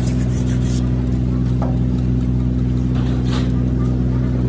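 An engine running steadily at an even speed, with a few short clinks.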